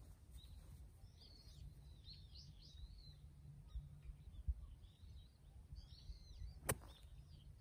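Small birds chirping on and off, and about two-thirds of the way through a single sharp click of a golf club striking the ball on an approach shot.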